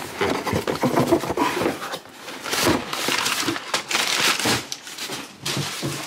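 Cardboard shipping box and its paper packing being handled: irregular bursts of rustling and crinkling.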